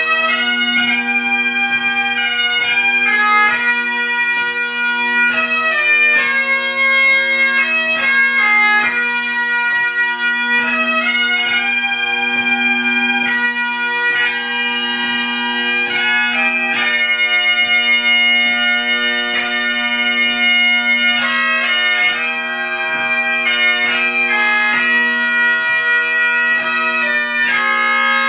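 Several Highland bagpipes playing a tune together: a steady drone sounds throughout under the chanters' melody of held notes, and the melody strikes up right at the start over drones already sounding.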